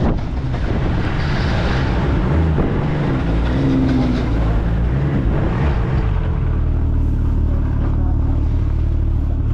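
Snowmobile running along a trail, its engine and track noise loud and rough; about six seconds in it settles into a steadier low drone.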